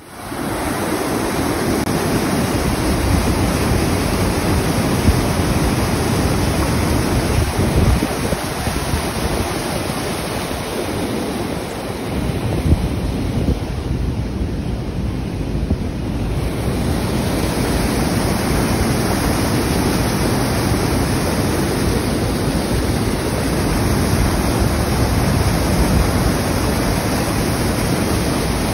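Rushing white water pouring over a dam spillway and fish ladder, a steady roar, with wind buffeting the microphone. For a few seconds around the middle the sound turns duller and a little quieter.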